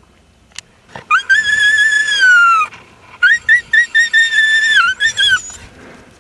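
A dog whining in a high pitch: one long whine of about a second and a half that falls away at the end, then a run of short, quick whines.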